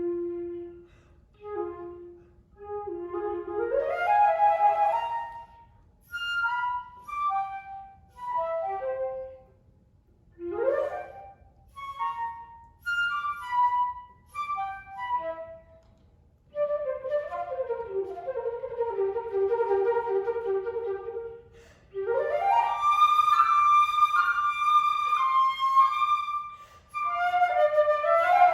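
Solo flute playing a melody in short phrases with brief pauses between them. There are several quick upward runs and a fast trill between two notes in the middle.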